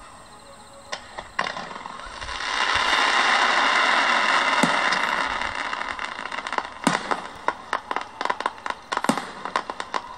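Aerial fireworks bursting: sharp pops and cracks throughout, with a dense crackling shower that swells for a few seconds and then fades. A few louder single bangs come in the second half.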